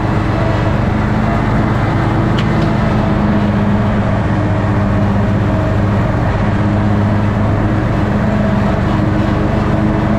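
Toro lawn tractor's engine running steadily under load while mowing grass.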